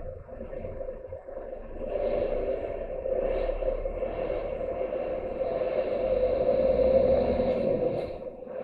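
Lorry engine and road noise heard from inside the cab, a steady drone that grows louder about two seconds in.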